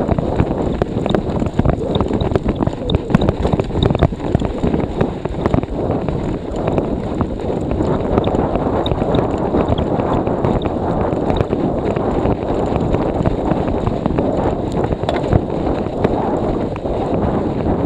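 Storm wind buffeting the microphone of a handlebar-mounted action camera as a cyclocross bike is ridden through snow: a steady dense rumble with many small clicks and knocks from the bike throughout.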